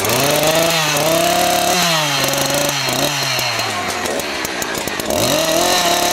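Petrol chainsaw engine revved hard several times, loud and rattling. Its pitch jumps up with each blip of the throttle and sinks back between them.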